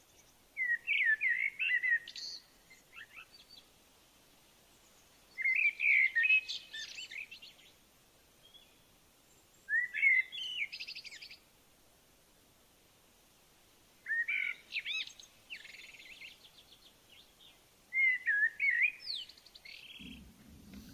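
A songbird singing: five phrases of quick, warbling, chirping notes, each lasting one to two seconds, repeated about every four seconds.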